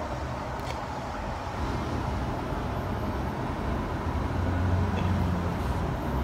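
Steady low background rumble with no clear pitch, swelling slightly about four seconds in.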